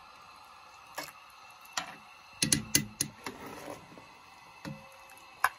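Metal ladle clinking and scraping against a cast iron Dutch oven while stirring a pot of stew: scattered sharp clicks, with a quick run of clinks about halfway through and a single sharp knock near the end.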